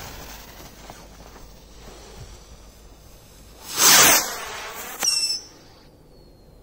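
Skyrocket launch: a fuse-and-motor hiss that fades early, then about four seconds in a loud rushing whoosh as a stick rocket takes off. About a second later comes a sharp crack with a brief high whistling tone that slides down and fades.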